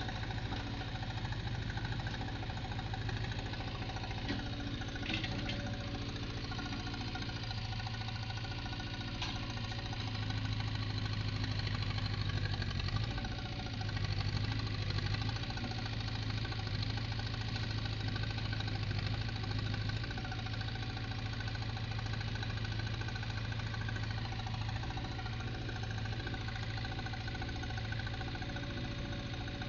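Backhoe's diesel engine running steadily, swelling a little louder for a few seconds around the middle, as the machine is tested.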